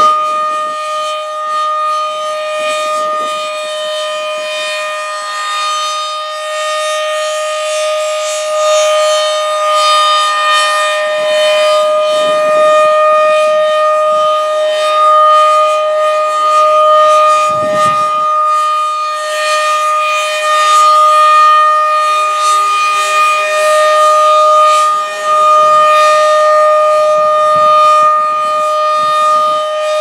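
Federal Signal 2001-DC rotating outdoor warning siren sounding a steady single-tone alert for a siren test. Its loudness slowly swells and fades as the horn turns toward and away from the listener.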